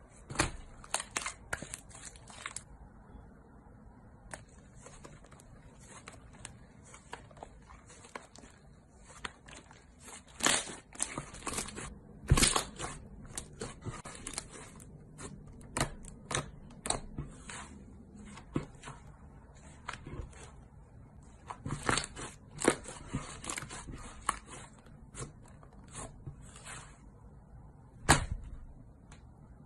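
Thick blue slime being stretched, kneaded and pressed by hand, giving off irregular sharp clicks, pops and crackles as trapped air bursts out of it, with a few louder pops along the way and a loud one near the end.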